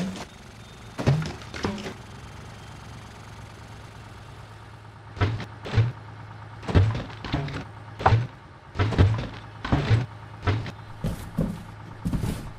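Cartoon sound effect of a heavy truck's wheels thudding over railway tracks: a run of short thumps, many in pairs, over a steady low engine hum.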